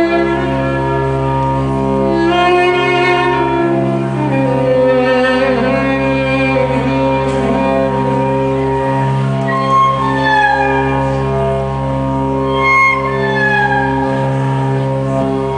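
Bowed violin music played live: long held low notes sounding under a higher melody line that slides between pitches.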